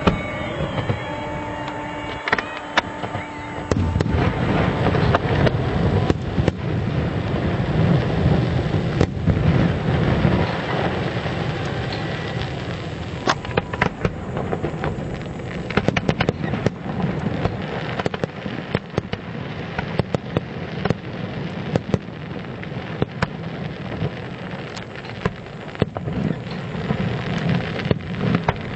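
Fireworks display: a dense run of low booms and rolling rumble with crackling, heaviest in the first third, then continuing crackle punctuated by many sharp bangs.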